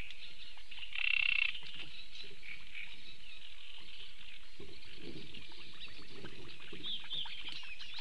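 Reed-bed chorus of frogs croaking and small birds calling. About a second in comes one short, louder pitched call, which the listener tentatively takes for a Eurasian bittern chick in the nest.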